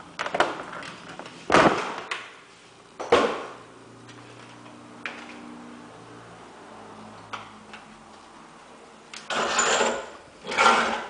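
Sharp knocks and bangs in an empty, echoing room, two loud ones in the first few seconds, then near the end a louvered bifold closet door rattling twice as it is folded open and shut.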